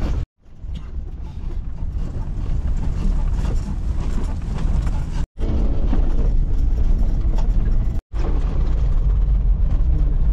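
A jeep driving, heard from inside the cabin: a steady deep engine and road rumble. It is broken three times by a brief total dropout where the recording is cut.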